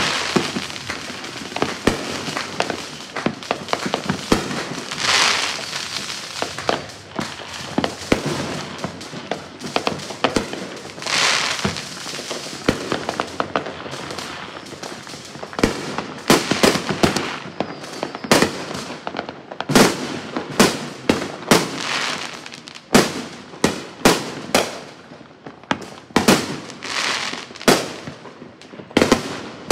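Fireworks going off in many places at once: an irregular run of sharp bangs and pops, with a couple of longer swells of noise about 5 and 11 seconds in. The bangs come closer together in the second half.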